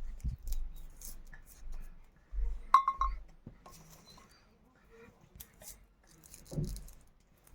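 Kitchenware being handled: dull knocks and a few clinks of glass or metal, the sharpest clink about three seconds in ringing briefly.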